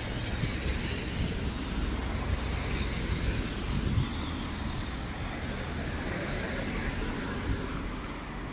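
City street traffic: vehicles running and passing, with a steady low engine rumble and tyre noise.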